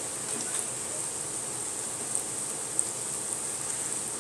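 Onion paste and ground spices frying in oil in a pot, a steady sizzle with a couple of small pops about two and three seconds in.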